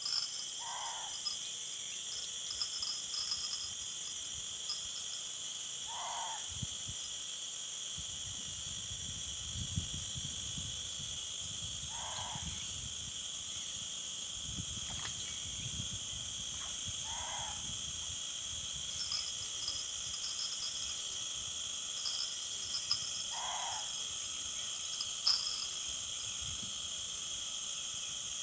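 A short, low hooting call repeated about every six seconds, five times, which the anglers take for a 'bangkuy'. A steady chorus of crickets and other insects runs underneath.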